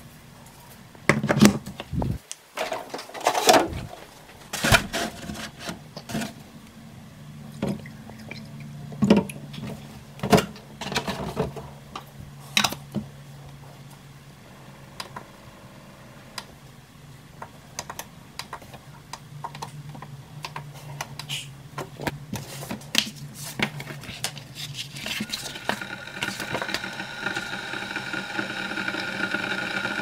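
Clicks and knocks of parts being handled and set down on the Keurig K-Café coffee maker over the first half. About five seconds from the end, the machine starts to run with a steady mechanical hum and whine that grows louder.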